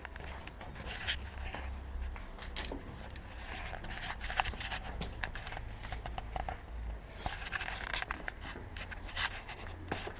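Scraping, rubbing and sharp clicks of an action camera being handled and set down, over a steady low rumble.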